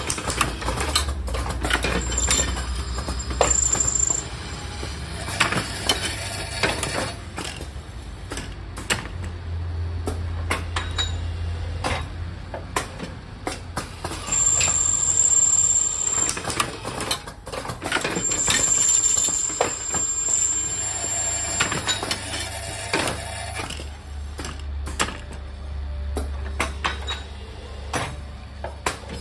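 Automatic assembly machine for spring washers, nuts and lead screws running: metal parts clatter and the machine clicks and knocks irregularly over a low hum that swells and fades.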